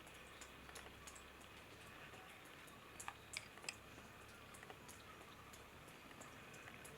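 Near silence: room tone with a few faint soft clicks, the clearest ones about three seconds in.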